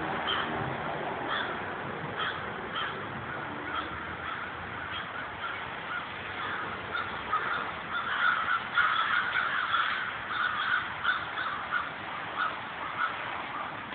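A large flock of American crows cawing, many birds calling over one another at once. The calling grows busiest and loudest in the middle.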